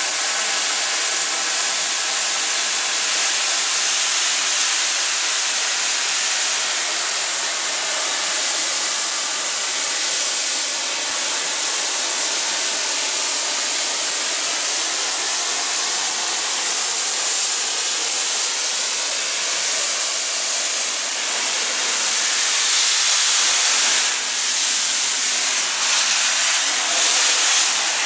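Steam hissing steadily from around the cylinders of the standing LMS Princess Royal class Pacific No. 6201 Princess Elizabeth, growing a little louder near the end.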